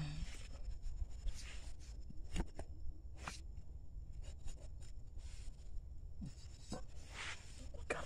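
Scratching and rustling handling noises with a few sharp clicks, as hands work cord around wooden stakes and handle a machete.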